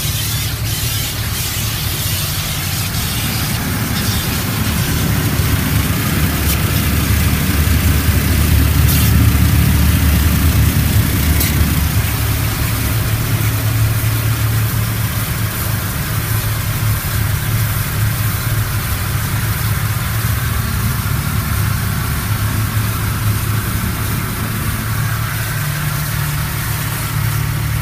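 Water from a Mark VII SoftLine Dynamic touchless car wash spraying and sheeting over a car, heard from inside the cabin: a steady hiss over a low rumble that swells about a third of the way in and then eases.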